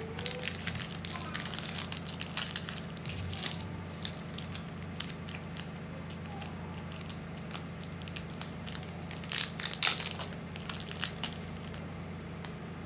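Sweets being crushed in a grinder: irregular crunching and cracking. It is densest in the first few seconds and again around nine to eleven seconds in, sparser in between.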